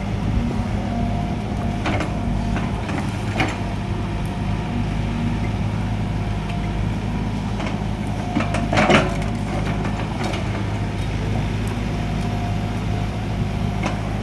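Excavator's diesel engine running at a steady pitch, with a few short knocks, the loudest about nine seconds in.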